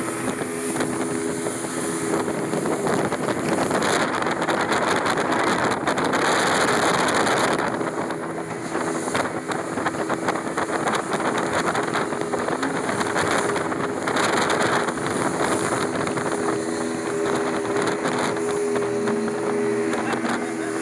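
Motorboat running at speed: a steady engine drone under a loud rush of wind and water spray, the rush swelling at times.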